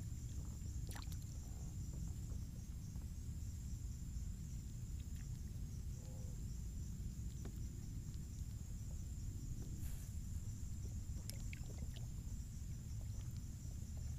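Water lapping and sloshing around a kayak hull as a low steady rumble, with a steady high hiss above it and a few scattered faint clicks and taps.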